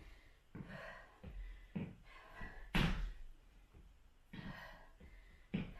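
A woman breathing hard from cardio exercise: a string of short, breathy exhales and gasps, the strongest about three seconds in.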